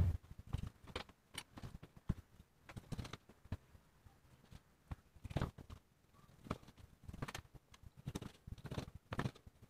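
Chef's knife slicing through rolled bacon, the blade knocking down onto a plastic cutting board in irregular taps, about one or two a second.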